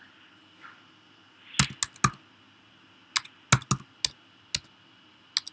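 Typing on a computer keyboard: sharp key clicks in short runs, a handful about one and a half seconds in, another handful between about three and four and a half seconds, and two more near the end.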